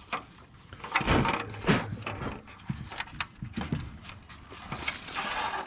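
Irregular knocks, clunks and a short scrape near the end as wooden beehive boxes and lids are handled.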